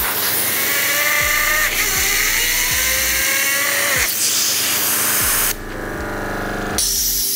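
STAHLWERK ST1215BL tankless brushless air compressor running in whisper mode, with a steady hiss of air from its hose and a motor whine that shifts in pitch. The hiss and level drop briefly about five and a half seconds in, then come back.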